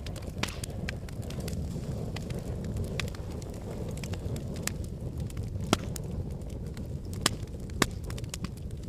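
Wood fire in a fireplace crackling, with many small snaps and a few louder pops over a steady low rumble; three sharp pops stand out in the second half.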